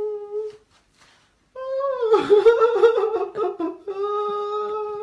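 A long, held, humming vocal tone. It holds steady, stops briefly, comes back louder and wavering in pitch, then settles into a steady hum again near the end.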